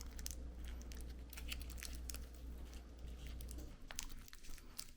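Crinkling and clicking of clear plastic tape being handled and pressed around a LiPo battery pack. A steady low hum underneath stops near the end.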